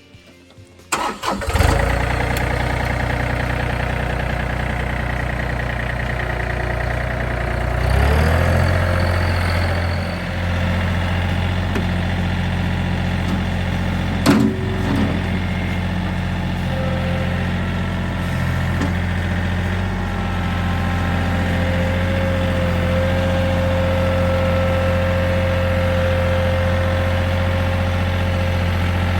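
Tractor engine starting about a second in and then running steadily at idle, rising briefly around eight seconds, with a single metallic knock about fourteen seconds in.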